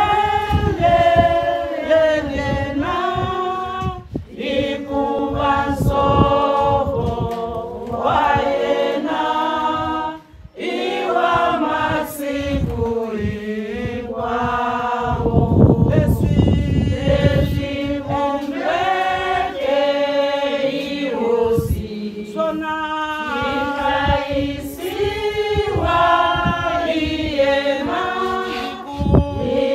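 A group of women singing together a cappella, with no instruments, and a short break about ten seconds in.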